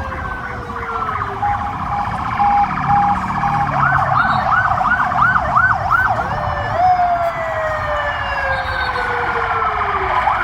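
Several emergency vehicle sirens sounding at once and overlapping. There are long slowly falling wails, a fast rise-and-fall yelp in the middle, and a pulsed steady tone early on.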